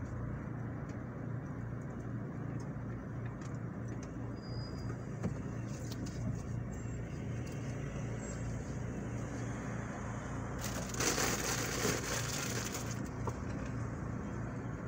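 A car's engine idling at a standstill, a steady low hum heard from inside the cabin, with traffic passing outside. About eleven seconds in comes a louder hiss lasting roughly two seconds.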